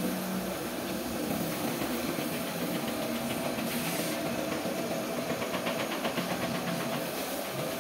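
Compressed-air paint spray gun hissing steadily as paint is sprayed onto a car's body panels, with a steady machine hum underneath.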